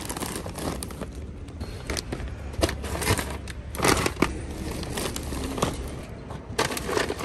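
Paper grocery bags rustling and crinkling as they are lifted from a shopping cart and set down in a car trunk, with a few sharper knocks, the loudest about four seconds in. A steady low hum runs underneath.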